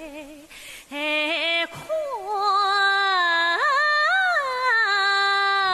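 Female Yue opera voice singing a long drawn-out melismatic phrase. It comes in strongly about a second in, slides up in pitch twice past the middle, and ends on a long held note with vibrato.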